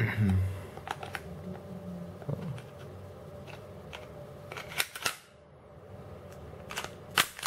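Glock 29 Gen 4 pistol being reassembled by hand: the slide is worked back onto the polymer frame, with handling rustle and sharp clicks of metal and plastic parts. There is a loud burst of clicks about five seconds in and more clicks near the end as the parts seat.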